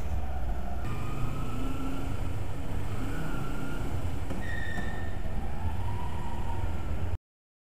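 Motorcycle engine, likely a Kawasaki Ninja 250's parallel twin, running at low revs inside an underground car park, with a series of short, high squeals that glide up and down in pitch. The sound cuts off suddenly near the end.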